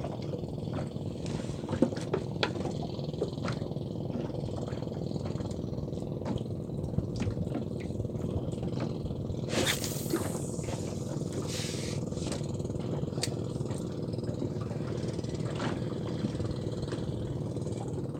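Handling noise from a spinning fishing rod and reel: scattered light clicks and a brief rustling burst about ten seconds in, over a steady low rumble.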